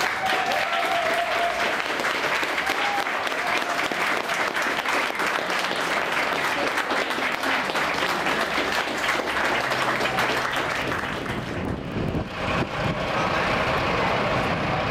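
Crowd applauding: dense, steady clapping that dies down near the end.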